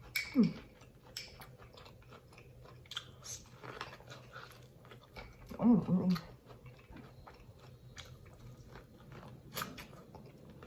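Close-miked biting and chewing of corn on the cob: a run of wet mouth clicks and crunchy bites. There is a short vocal sound about half a second in and another around six seconds in.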